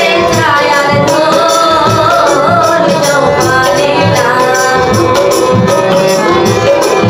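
A woman singing a Bengali song over instrumental accompaniment with a steady percussion beat. Her voice drops out about four and a half seconds in, leaving the instruments playing.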